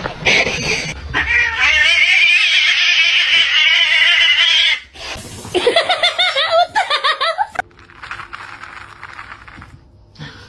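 An animal's long, wavering, yowling cry lasting about four seconds, followed by shorter wavering cries.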